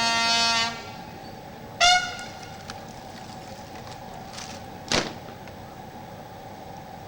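A brass instrument sounding a military call: a held note that ends just under a second in, then one short note about two seconds in. A lull follows, with a faint steady hum and a single click about five seconds in.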